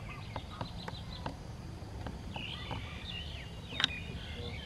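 Birds chirping faintly over a low outdoor rumble, with a few light clicks and one sharper click near the end.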